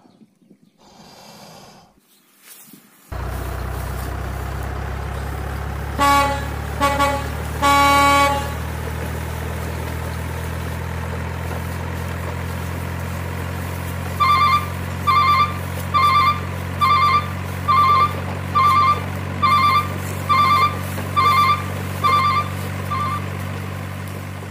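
Truck sound effects: a steady low engine drone starts about three seconds in, a horn toots three times, the last toot longest, and then about ten evenly spaced reversing-style beeps follow, roughly one a second.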